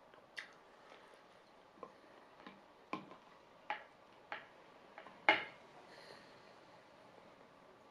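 Eating sounds from a man who has no teeth, gumming a spoonful of sushi bowl: about eight short sharp clicks and smacks of mouth and spoon, scattered over several seconds, the loudest about five seconds in.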